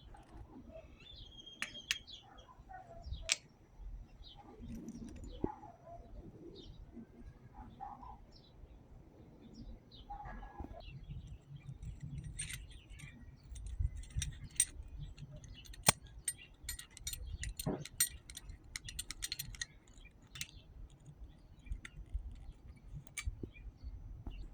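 Light, scattered metallic clicks and clinks of a small screw, washers and hand tools being handled and fitted, with a dense run of quick clicks about two-thirds through. Faint bird chirps in the background.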